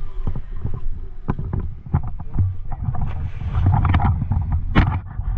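Wind buffeting the microphone as a steady low rumble, with scattered short knocks and a sharper crack near the end.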